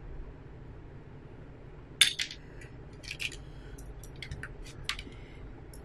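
Small hard parts clicking and clinking as they are handled on a desk: one sharp clatter about two seconds in, then a string of lighter scattered clicks.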